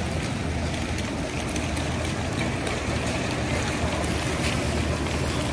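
Steady low hum of a boat engine under a continuous wash of water and wind noise.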